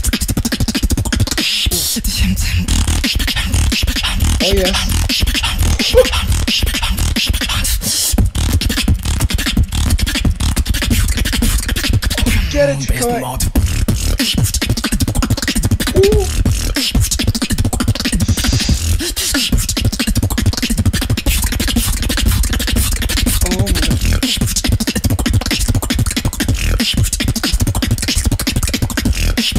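Solo beatboxing into a handheld microphone: a fast, unbroken run of drum-like kicks, snares and clicks over heavy bass, with a brief pitched vocal warble about halfway through.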